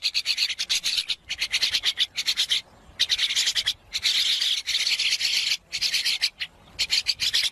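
A pet's claws scratching frantically at a surface: very fast, rasping strokes in spurts of a second or so, with brief pauses between them.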